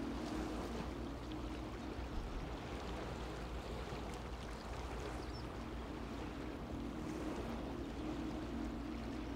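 Steady seaside ambience: a constant wash of waves and wind, with a low steady hum that fades in the middle and returns near the end.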